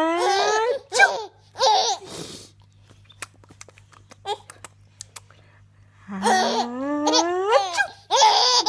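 Two drawn-out fake sneezes by an adult, each a long 'ah' rising in pitch that breaks into a sharp 'choo', and a six-month-old baby giggling in reply. The first sneeze peaks about a second in and is followed by short giggles; after a quiet stretch of a few soft clicks, the second builds from about six seconds in and peaks near the end.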